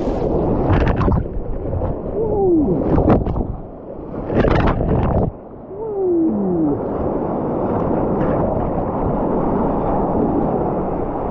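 Whitewater rushing and crashing around a sea kayak running a big rapid, with waves splashing over its deck in loud surges during the first half. Twice, short falling gurgling tones are heard.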